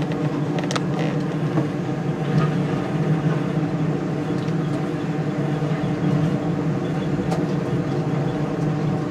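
Running noise inside a moving Düsseldorf Airport SkyTrain car, a suspended monorail: a steady hum with several held tones from the drive, with a few light clicks and knocks.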